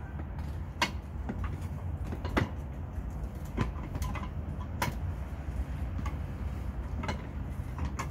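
Plastic clicks and knocks from a handle-and-pre-filter head assembly being screwed by hand onto the threaded neck of a plastic DI resin vessel, at irregular intervals over a steady low hum.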